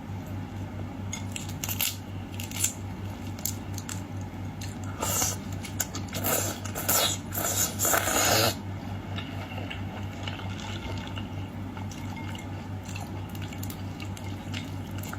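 Close-up eating sounds of boiled shrimp: shells crackling and being pulled off by hand, with wet squishing. Scattered clicks come early, and a run of loud rough crackles follows from about five to eight and a half seconds in, over a steady low hum.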